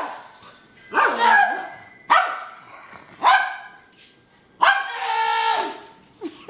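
Dog barking: three short barks about a second apart, then a longer bark near the end.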